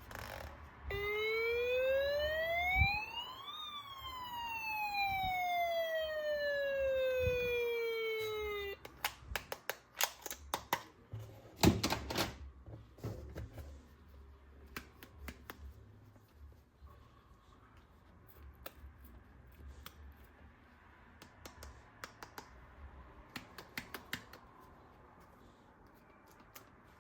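A toy's electronic police siren plays one slow wail, rising for about three seconds and then falling, and cuts off abruptly about nine seconds in. Scattered clicks and rattles of plastic toy parts being handled follow.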